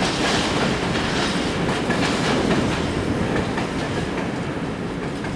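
Wagons of a mixed freight train rolling past, their wheels clattering over the rail joints in a steady stream of clicks over a rumble that slowly gets quieter.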